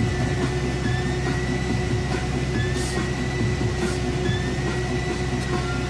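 Steady low rumble and hum of a moving vehicle, with a faint high tone sliding slowly upward every couple of seconds.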